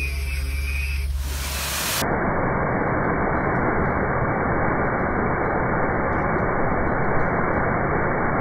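A handheld stick blender hums steadily as it mixes soap batter toward trace. About two seconds in, this gives way to the steady rush of a waterfall, water pouring over a wide ledge.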